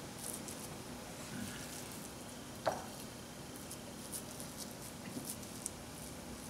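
A spatula spreading soft homemade cheese-and-raisin filling over a crepe on a plate: faint, soft squishing and scraping, with one light tap a little under three seconds in.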